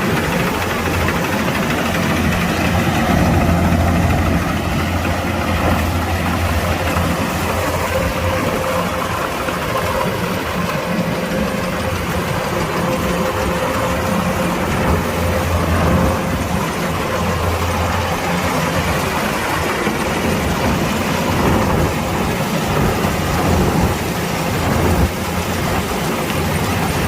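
Kubota DC-105X combine harvester's engine running steadily.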